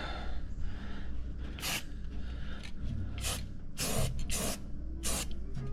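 A MIG welder laying short bursts of weld on a truck frame bracket: about five brief hissing, crackling bursts, coming closer together toward the end, over a steady low hum.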